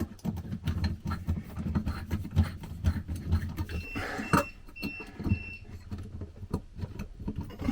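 Clicking, rattling and scraping of a ceramic light receptacle and its mounting screws being worked into a ceiling junction box, with four short high squeaks about halfway through.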